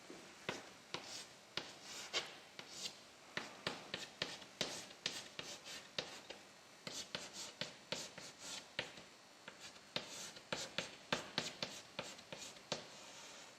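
Handwriting: a run of short scratching strokes of a writing tool on a surface, several a second, with brief pauses between groups.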